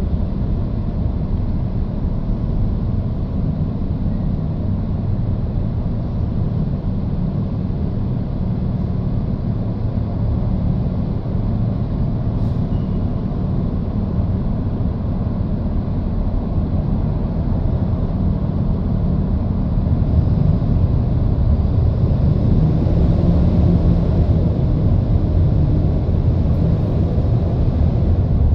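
Steady low road and traffic rumble heard from inside a car driving through a road tunnel, growing louder about two-thirds of the way through.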